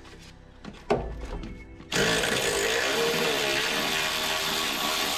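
A single knock, then about two seconds in an impact gun starts and runs steadily for about four seconds as it spins a bolt out, its pitch wavering a little.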